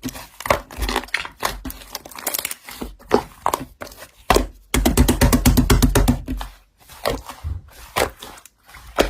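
Slime being played with by hand: sticky crackling and popping clicks, with a fast run of pops about halfway through that lasts about two seconds.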